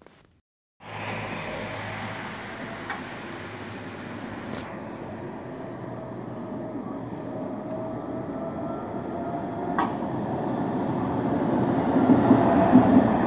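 A tram running on its rails begins about a second in and grows steadily louder as it approaches, with a couple of sharp clicks along the way.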